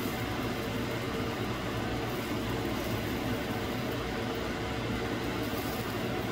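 Steady hum and hiss of a running fan, with a faint constant tone.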